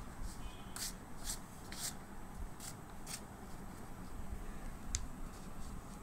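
Hands handling a sheet of drawing paper: short papery rustles every half second or so, and a sharper click about five seconds in.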